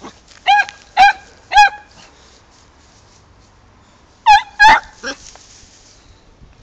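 Beagle giving short, high-pitched yelping barks: three about half a second apart, then two more after a pause of a few seconds.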